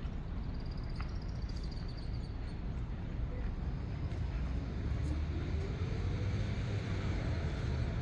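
Steady low rumble of distant town traffic. From about halfway through, a vehicle engine rises slowly in pitch as it speeds up.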